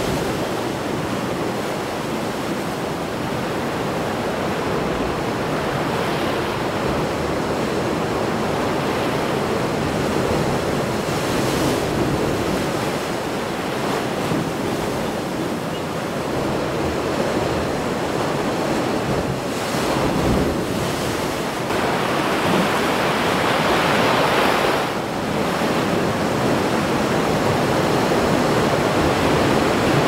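Heavy storm surf crashing and washing continuously, with wind; the wash swells in bigger surges about two-thirds of the way in.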